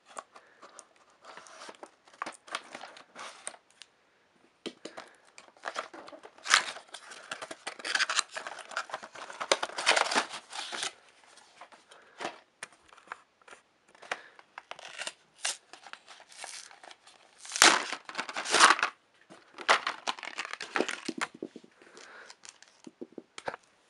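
Toy box packaging being cut and torn open: scissors at the edge of the box, then cardboard and packaging tearing and crinkling in irregular bursts, loudest around ten seconds in and again around eighteen seconds.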